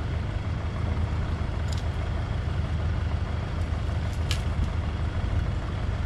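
A steady low rumble, with two faint clicks about two and four seconds in.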